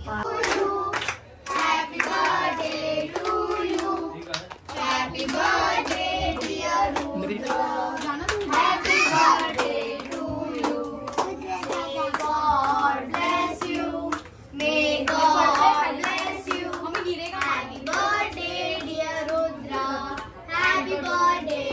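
A group singing together with hand clapping along.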